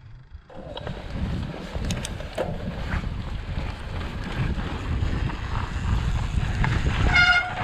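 Wind buffeting an action camera's microphone with a steady low rumble as a mountain bike rolls through deep snow, with a few small clicks and a short high squeal near the end.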